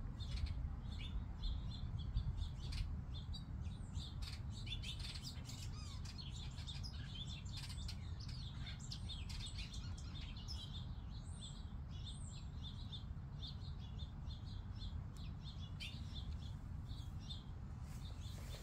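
Small birds chirping and twittering, a busy flurry of calls for several seconds in the middle, over a steady low rumble.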